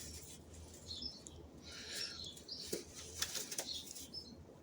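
Pigeons flapping their wings in short flurries in a loft, with a few faint high chirps.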